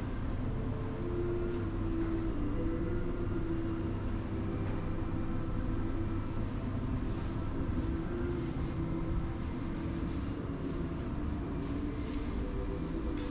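Steady low rumble of indoor room noise with a faint wavering hum, and a few faint ticks in the second half.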